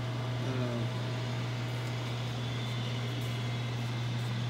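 Alco ASP200 chicken cutlet flattener running, its electric gear motor driving the conveyor belts and pressing roller with a steady low hum; it runs pretty quietly.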